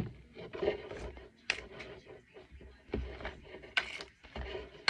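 A hairbrush drawn through a doll's hair in irregular strokes, with small knocks and rustles of handling.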